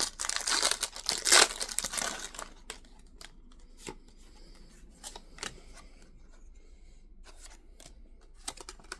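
A Pokémon booster pack wrapper being torn open and crinkled for about the first two and a half seconds, then quieter light clicks and rustles of the cards being handled.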